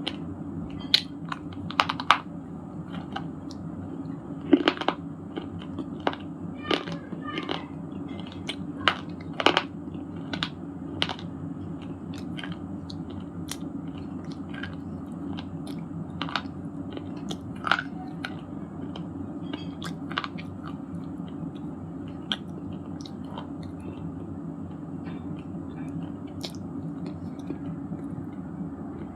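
Broken shale stone pieces being bitten and chewed in the mouth, with sharp crunches and cracks. The crunches come thick and loud for the first ten seconds or so, then turn to sparser, lighter chewing. A steady low hum runs underneath.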